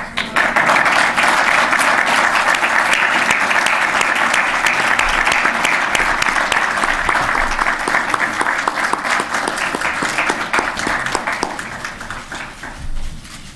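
Audience applauding. The applause starts abruptly, holds steady, then fades away over the last couple of seconds.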